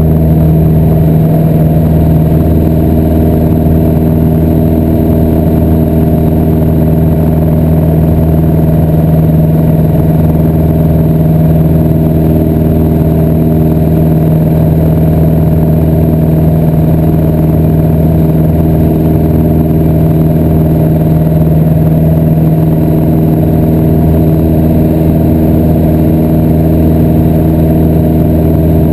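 Piper PA-28-181 Archer II's four-cylinder Lycoming O-360 engine and propeller running loud and steady at takeoff power, heard from inside the cockpit through the takeoff roll and climb-out.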